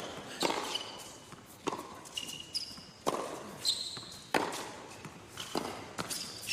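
Tennis ball rally on a hard court: sharp racket strikes about every second and a quarter, with lighter ball bounces between them and short high squeaks of shoes on the court surface.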